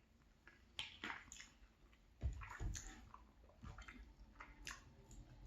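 Close-miked wet chewing and mouth sounds of someone eating tourtière meat pie, with a few sharp clicks about a second in and a heavier low thump a little past two seconds in.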